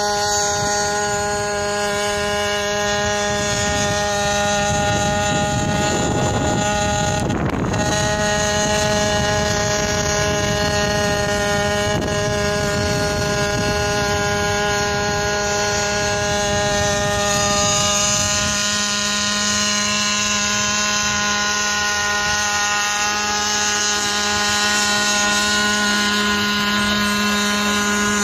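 An internal-combustion hybrid quadcopter hovering, its engine and rotors giving a steady, even drone of stacked tones that holds a constant pitch. About seven seconds in there is a brief rush of wind noise.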